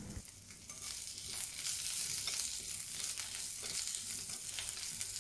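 Asparagus and carrot slices sizzling in hot oil in a frying pan over medium-high heat while chopsticks turn them. The sizzle is softer at first and grows a little louder after about a second.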